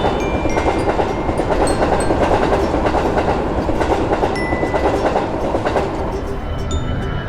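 Train passing, with a steady rolling rumble and wheels clattering over the rail joints.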